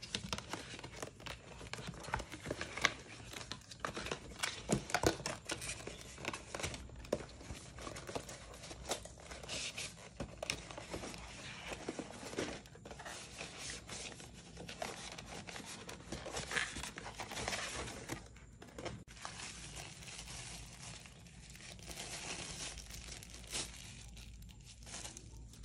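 Cardboard packaging being handled and slid apart, with plastic wrap crinkling and tearing, as a set-top box is unpacked: a continuous run of rustles, scrapes and sharp little taps, loudest in the first few seconds.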